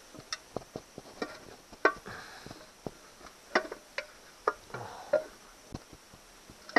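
Aluminium outboard midsection and lower-unit castings clinking and knocking together as they are worked into alignment by hand: irregular sharp metallic clicks, a few of them ringing briefly.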